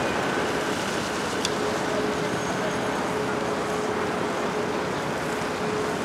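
Jet engines of an Airbus A321 airliner on landing, a steady rush of engine noise with a steady droning tone running through it.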